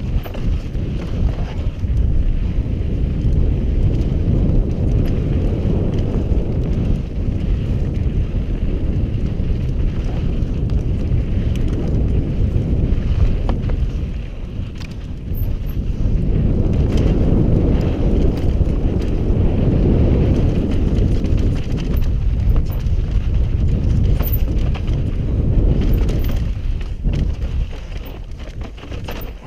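Wind buffeting a helmet-mounted camera's microphone over the rumble and rattle of a mountain bike descending a steep, rutted, sandy dirt trail, with frequent clicks and clatters from the bike over bumps. The noise eases briefly about halfway through and again near the end.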